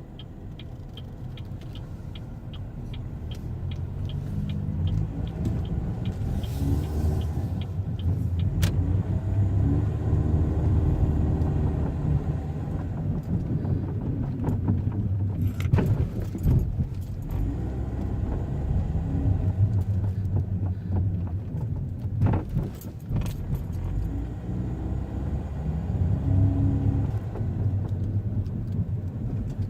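2005 Chevrolet Cobalt driving at low speed, its engine and road noise building over the first ten seconds, with rapid light ticking in the first few seconds and a few sharp knocks later. This is the intermittent front-end knock that the owner cannot place, and that he thinks depends on which way the steering wheel is pointed when coasting.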